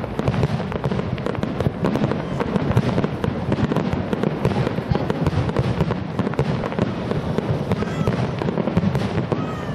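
Fireworks display: a dense, unbroken barrage of aerial shell bursts and crackling bangs.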